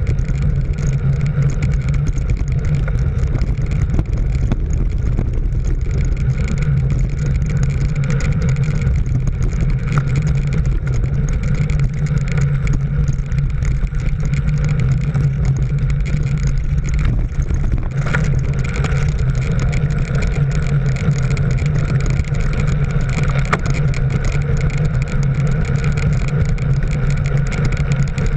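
A motor vehicle driving steadily at speed: an even engine hum under a rush of wind and road noise, unchanged throughout.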